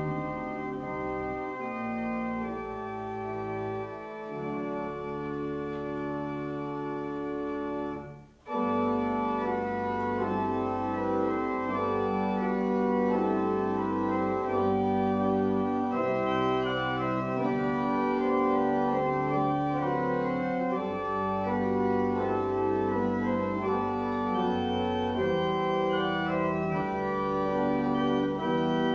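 Church organ playing a slow prelude in sustained, held chords. About eight seconds in the sound breaks off for a moment, then the organ comes back in louder and fuller.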